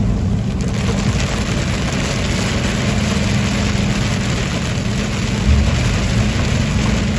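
Hail and heavy rain pelting a semi-truck's cab and windshield, heard from inside, over the steady low hum of the truck's engine. The hiss of the hail grows stronger about a second in and keeps up.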